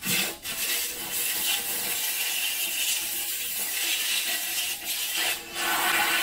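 Trigger spray wand on a hose hissing steadily as it sprays into the cast-iron column of a Bridgeport milling machine, washing out oil and degreaser. The spray breaks off briefly a few times.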